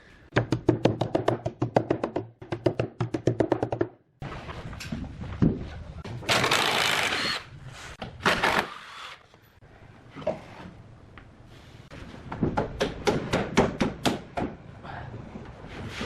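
Rapid runs of sharp knocks, several a second, consistent with hammering on wood, with two brief bursts of hissing noise in the middle.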